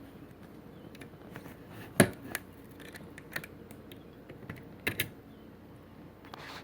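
Scattered sharp clicks and taps from handling a desktop motherboard while freeing the processor from its socket. The loudest click comes about two seconds in, and a quick double click follows near the five-second mark.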